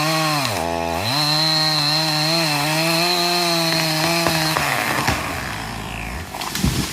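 Chainsaw running at high revs, its pitch dipping briefly as it bogs under load just under a second in, then recovering. About four and a half seconds in the engine note drops away and fades, followed by a few sharp knocks near the end.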